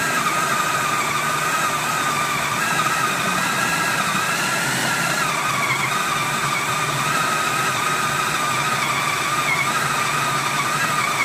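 Electric food processor motor running at speed, chopping a thick spiced paste: a steady whine that wavers slightly in pitch as the blade works through the mixture.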